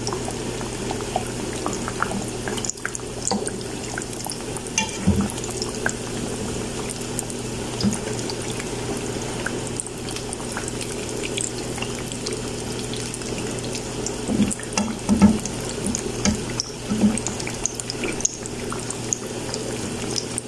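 Breaded potato-and-beef patties deep-frying in hot oil, a steady sizzle with many small crackling pops over a low hum. A metal slotted spatula knocks against the pan a few times, about five seconds in and again in a cluster past the middle.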